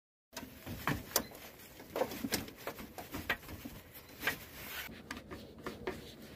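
Screwdriver tightening worm-gear hose clamps on the radiator hoses: irregular small clicks and light knocks of the tool and the clamps.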